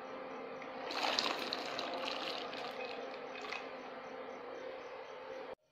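Water being poured into a pressure cooker over soaked black chickpeas: a steady splashing trickle that gets louder about a second in, then eases, and cuts off abruptly near the end. A faint steady hum runs underneath.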